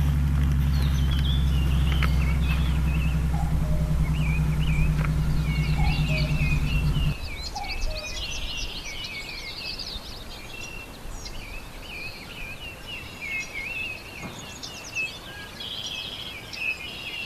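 Songbirds singing, with many quick high chirps and warbles overlapping. A loud steady low hum lies under them at first and cuts off suddenly a little before the middle.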